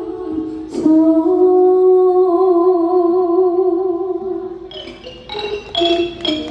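A woman's singing voice holding one long note with a wavering vibrato, part of a likay song; near the end the backing band comes in with quick struck percussion notes.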